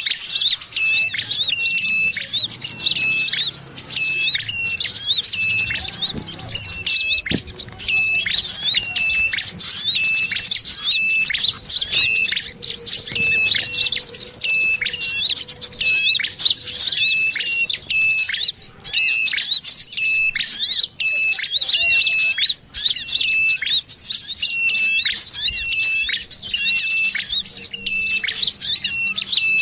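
Bird-lure recording of ashy tailorbirds and brown-throated sunbirds calling together: a dense, high-pitched twittering chatter with a short sharp call repeated about twice a second, running without pause.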